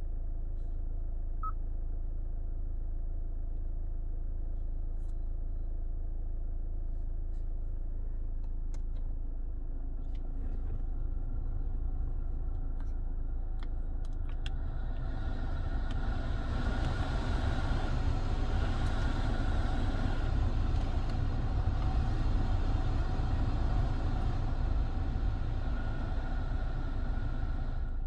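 Climate-control blower fan of a Hyundai Santa Fe heard from inside the cabin. Its air rush builds from about a third of the way in, stays loud through the middle and eases near the end as the fan is adjusted. Underneath is a steady low rumble from the idling 2.0-litre turbo-diesel engine, with a few faint clicks of dashboard buttons.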